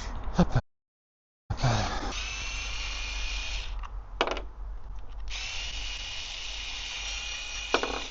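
Small electric power tool running in two steady, whining bursts of about two seconds each, with a click between them.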